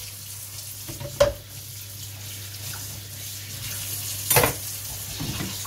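Hot olive oil in a frying pan sizzling faintly around a few test drops of batter, a sign the oil has reached frying temperature. Two short knocks, like kitchenware being handled, come about a second in and at about four seconds.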